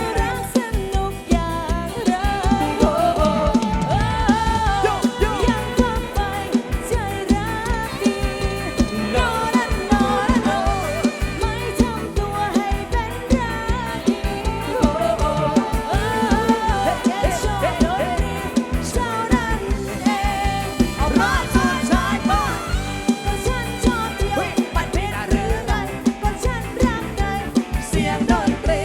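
Live band music from a Thai rot hae sound-truck band: a fast, steady drum beat under a bending, wavering lead melody.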